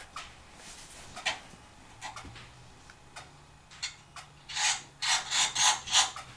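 Hands rubbing and brushing against the paper pages of a picture book: a few scattered clicks, then a run of about five quick rubbing strokes near the end.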